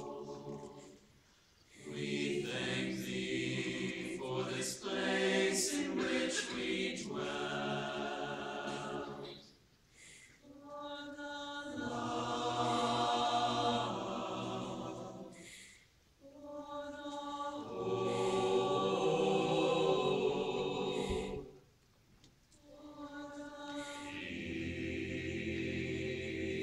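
Mixed choir of about sixteen voices singing sustained chords phrase by phrase, with short near-silent rests between phrases, four times.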